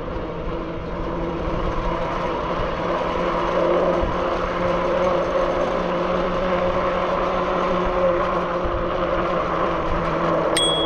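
Zugo electric bike riding along, its motor whining steadily over tyre and wind noise. Near the end the handlebar bell dings once.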